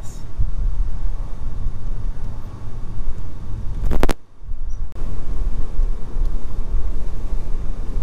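Steady low road and engine rumble of a car, heard from inside the cabin while driving. About four seconds in it is cut by a sharp click and a brief drop-out, then carries on.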